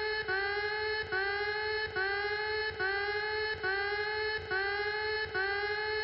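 Electronic alert tone pulsing in a steady rhythm: the same buzzy tone repeats just under a second apart, each pulse starting with a slight upward slide in pitch.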